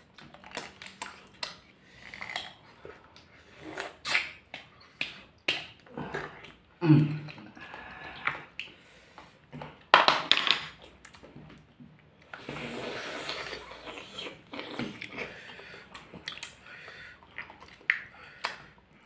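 Close-up eating sounds of thick spicy instant ramen noodles eaten by hand: wet chewing and lip smacks as a string of short clicks, with a loud slurp about ten seconds in and a longer slurp soon after.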